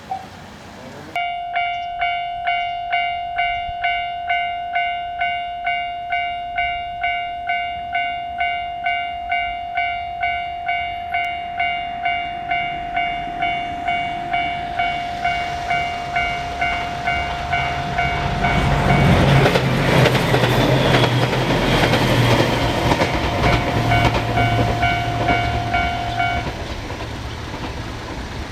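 Japanese level-crossing warning bell starting about a second in, ringing "kan-kan" at about two strokes a second to warn that a train is coming. From about two-thirds of the way in, a train passes over the crossing with a rising rumble and wheel clatter, and the bell stops shortly before the end while the train keeps rolling by.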